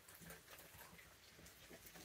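Near silence, with a few faint soft ticks.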